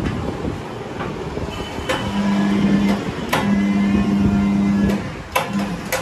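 Tyre-changer machine's turntable motor humming steadily in three short runs, stopping and starting, while a new motorcycle tyre is worked onto the alloy rim. Sharp clacks of metal and rubber come between the runs.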